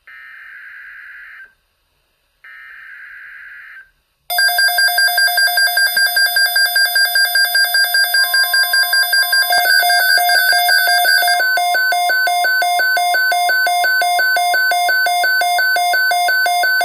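A NOAA weather radio broadcast's digital SAME header, two short screeching data bursts, then two Midland weather radios sounding their alert alarms together: loud, rapid electronic beeping on two pitches, its rhythm changing partway through, signalling a tornado watch.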